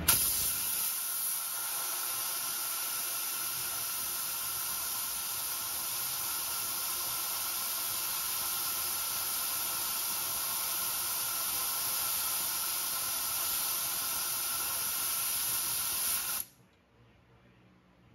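Compressed air hissing steadily from an air tool, cutting off abruptly about sixteen and a half seconds in.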